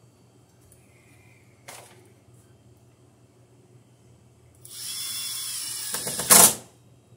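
Cordless power driver running as it drives a screw into a square metal electrical box, for about a second and a half, then a short, much louder burst before it stops. A single light click comes about two seconds earlier.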